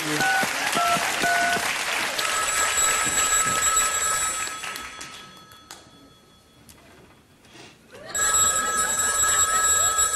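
Three quick phone keypad tones over audience laughter, then a desk telephone ringing: two long rings of about three seconds each, with a pause of about three seconds between them.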